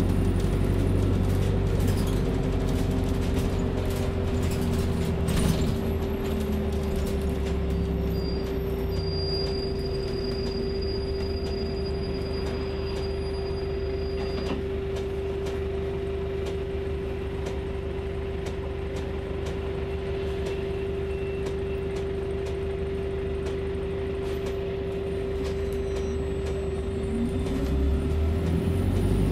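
Cabin sound of a Volvo 7900A Hybrid city bus, diesel-electric hybrid drive: a steady whine over a low drivetrain rumble. The rumble eases after the first few seconds and builds again near the end.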